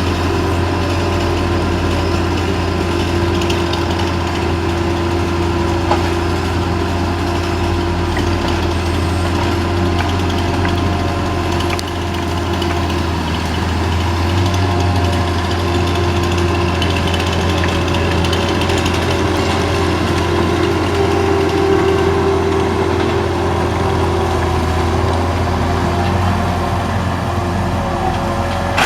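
A large engine running steadily at a constant speed, with a few faint knocks over it.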